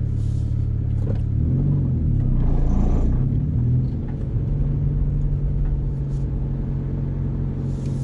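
A 1998 Honda Civic hatchback's engine heard from inside the cabin, pulling away under a manual gearbox: the hum rises and wavers for a couple of seconds, drops back about four seconds in, then runs steadily.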